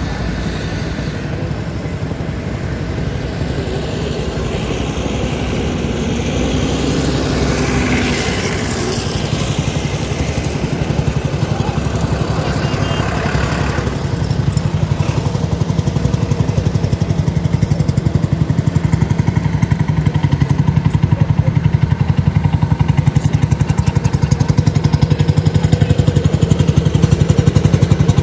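Diesel farm tractor engines running, a steady low rumble that grows gradually louder over the second half.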